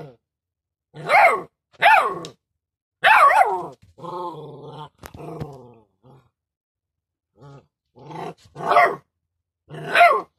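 A puppy giving a string of short growls, yelps and whines, with the pitch falling in each call. The loudest calls come early and again near the end.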